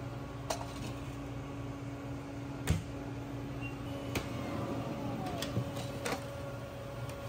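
Steady hum of kitchen ovens and fans, broken by about six sharp metal knocks and clicks as a sheet pan is handled on the oven deck and an oven door is worked. The loudest knock comes a little under three seconds in.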